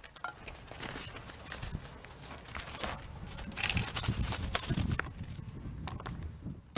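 Irregular rustling with light clicks and knocks from a person handling gear at the mesh netting of a walk-in bird trap.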